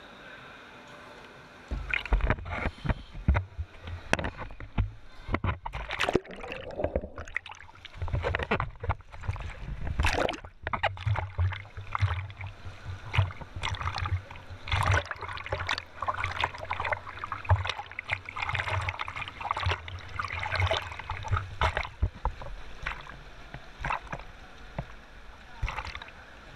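Pool water splashing and sloshing right at the microphone as a swimmer moves along the surface, an irregular churning with a low rumble that starts about two seconds in, after a faint hiss.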